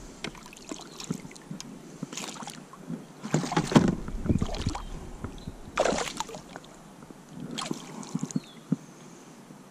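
A bass splashing in a landing net at the side of a kayak while it is handled for unhooking: several separate splashes and rustles, the loudest about halfway through, then a few light knocks near the end.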